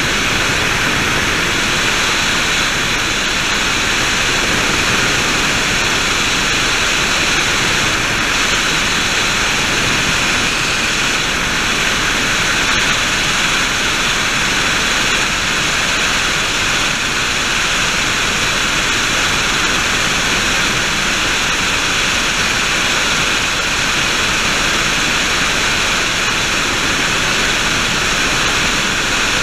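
Helicopter in flight heard from inside the cabin: a loud, unbroken rushing drone of engine and rotor with a steady high whine over it.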